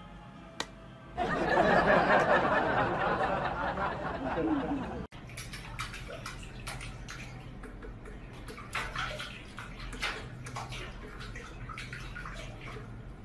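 A hair dryer switches on about a second in and blows loudly for about four seconds, then stops abruptly. After that comes a quieter stretch of water in a stainless steel kitchen sink, splashing as a cat paws at it.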